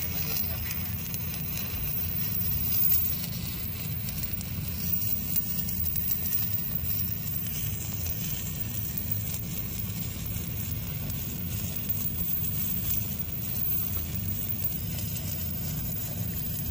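Stick-welding arc crackling and sizzling steadily as a 7018 electrode burns.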